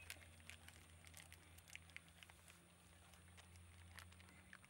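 Near silence: faint background ambience with a low steady hum and scattered faint clicks.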